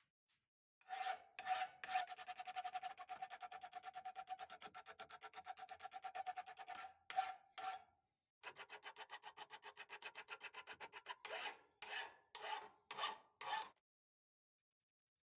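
Flat hand file scraping across the steel striker face of an old cobbler's hammer clamped in a bench vise, taking the rust down to bright metal. It goes in fast, even strokes, with a steady ringing note from the steel under the first run. After a brief pause the filing starts again and ends with about five slower, separate strokes.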